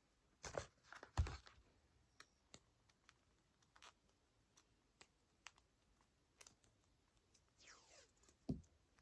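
Mostly near silence, with faint scattered clicks and taps and a light rustle near the end: paper and sticky tape being handled while the pieces are taped together.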